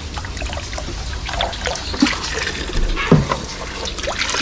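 Water splashing and trickling as a hand moves about in a shallow plastic tub of water, with louder splashes about two and three seconds in.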